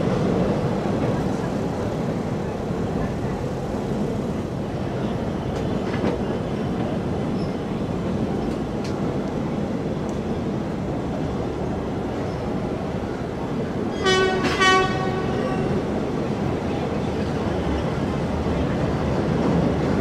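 Passenger train running along the track, a steady rumble and rattle heard from an open carriage window. About fourteen seconds in, the train's horn sounds two short blasts.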